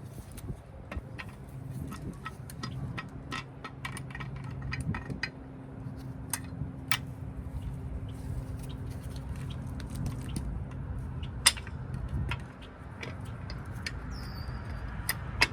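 Irregular small clicks and taps from brake-shoe hardware and tools being handled, one sharper click about eleven seconds in, over a steady low hum.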